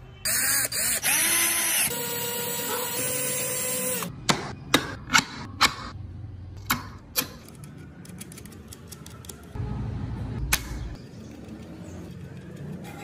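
A loud swishing sound with held tones fills the first four seconds. It is followed by a series of sharp clicks and light knocks as carved wooden parts, bolts and metal coil springs are handled and fitted onto a wooden toy-car chassis.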